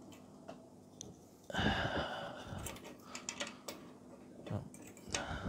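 Small metal hand tools, scissors and tweezers, being picked up and set down on a wooden table: light clicks and clinks, with a brief rustle about a second and a half in.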